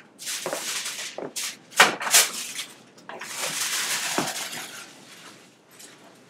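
A person lying back on a chiropractic treatment table: two long stretches of rustling, with a few sharp knocks in between.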